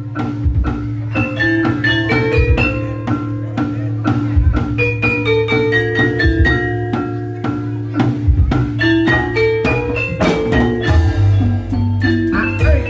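Banyumasan gamelan music for an ebeg dance: mallet-struck metallophones and xylophones play a quick, busy melody over drum beats and a low ringing tone.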